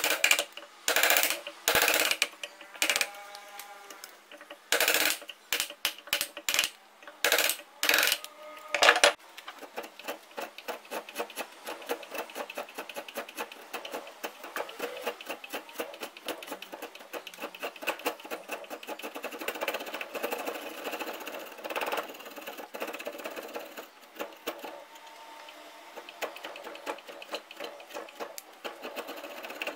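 Hand tool work on a steel axe head: a series of loud, separate strokes, a couple of them leaving the metal ringing briefly, then from about nine seconds in a fast, steady run of quicker, lighter strokes.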